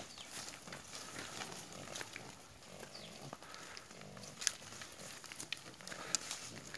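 Faint grunting from a herd of lợn mán hill pigs and piglets on the move, with scattered light scuffs and rustles.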